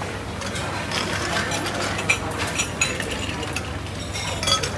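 Ice cubes and a metal scoop clinking against a glass mug as a drink is made: a run of sharp, irregular clinks, some ringing briefly, over a steady low hum.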